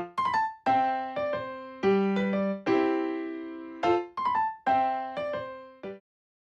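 Background music: a light tune of single piano-like notes struck one after another, each ringing and dying away, ending in silence about six seconds in.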